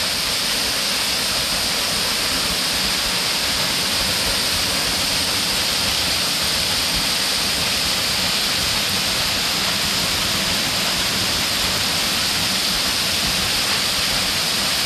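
Waterfall running: a steady, unbroken rush of falling water.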